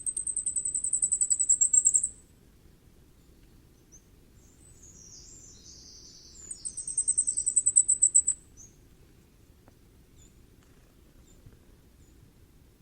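Common firecrest singing: two songs about six seconds apart, each a rapid run of very high, thin notes that grows louder toward the end and stops abruptly. A softer, rougher call sounds between them.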